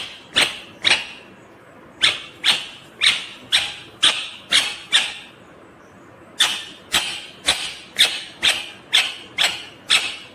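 Ringneck parakeet (rose-ringed parakeet) calling over and over: short, sharp, loud calls at about two a second, in bouts broken by pauses of about a second.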